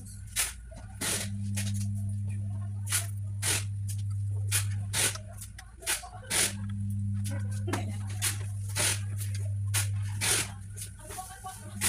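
Irregular clicks, taps and rustles of hands handling computer parts and the desktop case, over a steady low hum that drops out briefly a few times.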